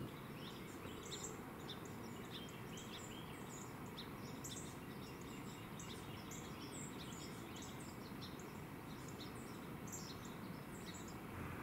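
Many small birds chirping, short high calls scattered throughout, over a steady faint background noise.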